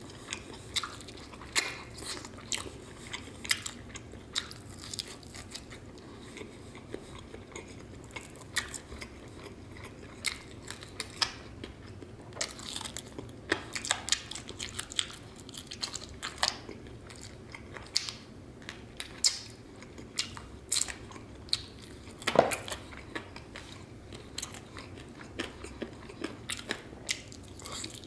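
Close-miked biting and chewing of sauced, fried chicken wings: crisp skin crunching and wet chewing in irregular bites, with one louder crunch about two-thirds of the way through.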